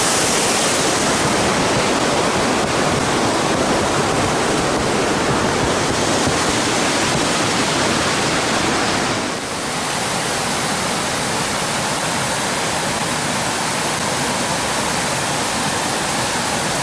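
Snowmelt creek rushing and cascading over rocks: a loud, steady rush of water. About nine seconds in it dips briefly and carries on a little quieter.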